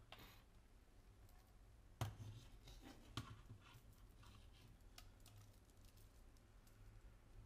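Faint handling noise from a card reader's bundled cables and plastic connectors: scattered light clicks and taps, with a louder knock about two seconds in and another about a second later.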